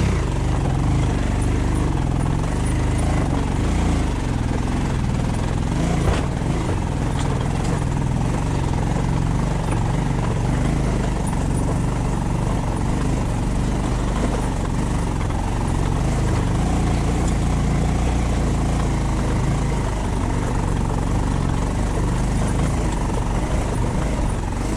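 A vehicle engine running steadily on the move, with road noise, and one sharp knock about six seconds in.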